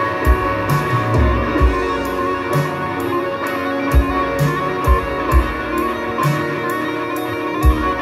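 Live rock band playing without vocals: electric guitars sustaining chords and lead notes over a drum kit, with kick-drum thumps and regular cymbal hits.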